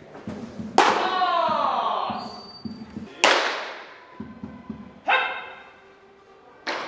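A baseball smacking into leather gloves in a covered bullpen: four sharp pops, each ringing briefly under the roof, the loudest about a second in. Short shouted calls follow some of the catches.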